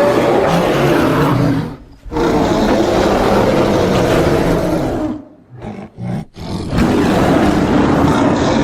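Polar bear roaring sound effect: a long, loud, rough roar, a second one of about three seconds, two short grunts, and then another roar that is still going near the end.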